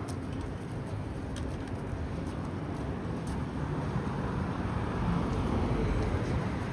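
Low, steady rumble of road traffic in a city street, swelling a little past the halfway point.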